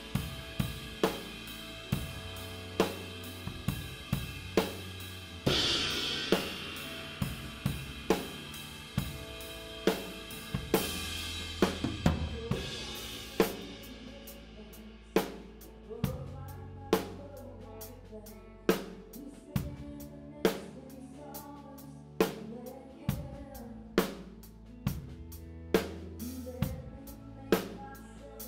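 Live drum kit, a 1972 Ludwig maple kit with Istanbul Mehmet cymbals, playing a slow ballad groove with the band: kick, snare and floor toms are prominent, with cymbal crashes. The cymbals drop away about halfway through, leaving evenly spaced drum hits about once a second over the bass.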